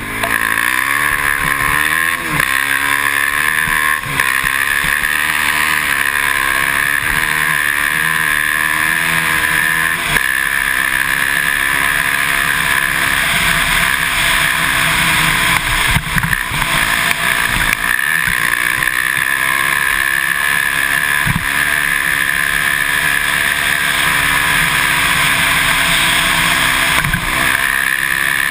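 Can-Am DS450X MX quad's single-cylinder four-stroke engine running under load while riding, its revs repeatedly climbing and dropping with the throttle.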